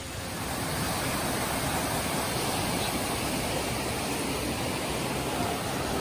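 Small waterfall cascading over a rock into a pool: a steady rush of water that swells in the first second and then holds.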